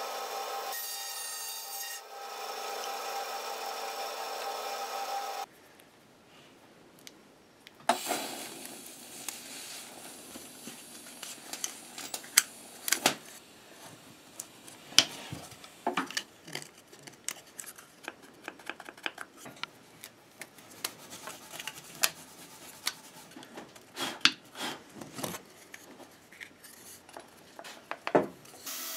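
A bandsaw runs for the first five seconds or so and then cuts off. After a short quiet, hands handle small wooden pieces cut from a 2x4 and stretch rubber bands around them, with rubbing and scattered sharp clicks and knocks of wood on the bench.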